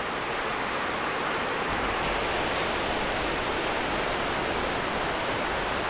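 Steady wash of ocean surf breaking on the beach, an even hiss with no distinct waves standing out, with a deeper low rumble from about two seconds in.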